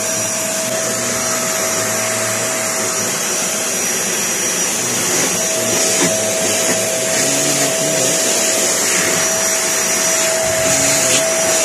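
Philips vacuum cleaner motor running steadily, a loud rush of air with a constant hum and a high whine. The repaired unit, which had not been working, now runs normally.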